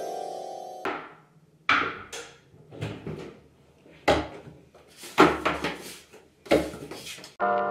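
A synth tone cuts off about a second in, then a string of sharp knocks and thumps as a wooden bathroom door's lever handle is worked and the door swung open. A music chord comes in near the end.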